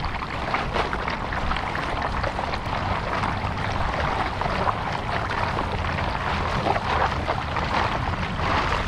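Continuous splashing and rushing of water around a kayak on a fast-flowing, swollen muddy river, with a low wind rumble on the microphone.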